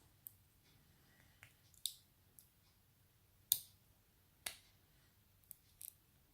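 Faint small metallic clicks and taps of pin-tumbler lock pins being handled as they are taken out of a disassembled Abus 83 padlock cylinder. About eight separate clicks, the sharpest about three and a half seconds in.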